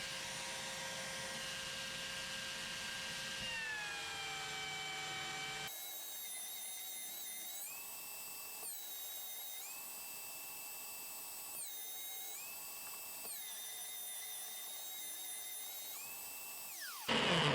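Belt sander running with a steady whine, its pitch sagging as a wooden block is pressed against the belt to flatten glue joints. Further on, the pitch drops and recovers again and again as the piece is pressed on and eased off.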